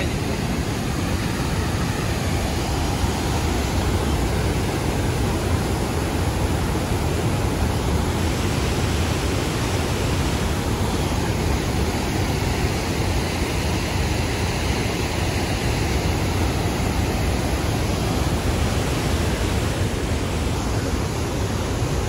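Waterfall and rapids of a river in flood: a steady, loud rush of water pouring over the rocks.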